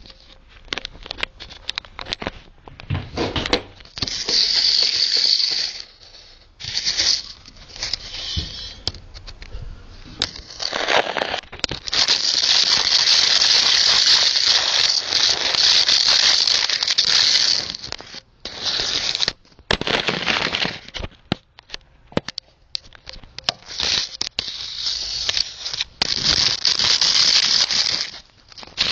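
Camera handling noise: rubbing and scraping of the camera moved low over a floor, with many clicks and knocks. The scraping hiss is loudest for several seconds around the middle.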